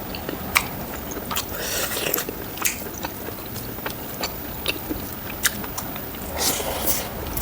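Close-miked eating sounds: chewing and biting into spicy pork rib curry with rice, with many short wet clicks and smacks and a denser burst of chewing near the end.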